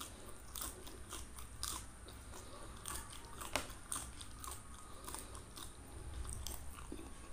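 Crunchy bites and chewing on a raw green pod, close to the microphone: a string of irregular crisp crunches, the loudest about three and a half seconds in.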